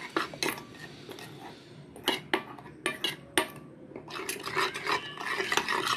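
Metal spoon stirring a wet spice paste in a stainless steel bowl: irregular clinks and scrapes of spoon on steel, coming thicker toward the end.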